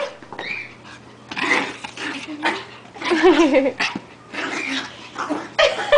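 Small Brussels Griffon puppy growling and yipping in play, in a string of short, rough bursts with brief pauses between.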